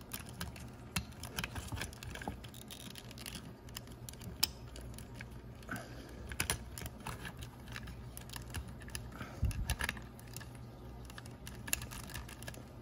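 Irregular small clicks and taps of plastic toy parts and a stretched paper clip wire being handled, as the wire is threaded through a Sega/Hasbro I-Dog pup's head mechanism to replace its broken spring.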